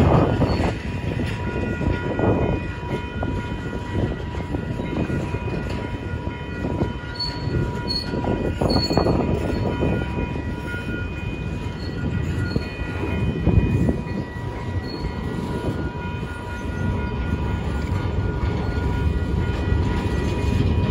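Long freight train of double-stack intermodal well cars rolling past at close range: a continuous rumble and clatter of steel wheels on the rails. A few brief, high wheel squeals come near the middle, and faint steady tones run underneath throughout.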